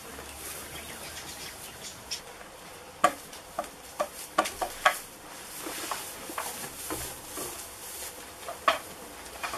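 Goats moving and foraging in straw bedding: soft rustling, with a run of sharp clicks and knocks between about three and five seconds in and one more near the end.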